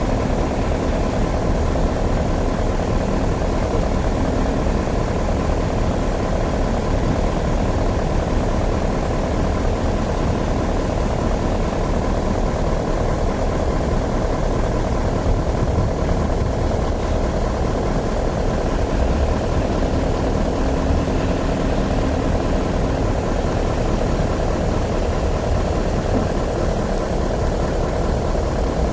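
Heavy diesel construction machine engine running steadily.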